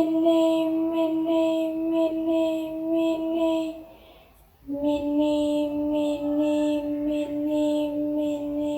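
A high voice chanting "mini, mini, mini" on one steady, held pitch, about one "mini" a second. The chant breaks off for a moment about four seconds in and resumes on a slightly lower note.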